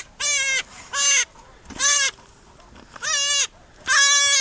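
Hunting dog baying at quarry hidden in a rock pile: five high, drawn-out yelps, about one a second.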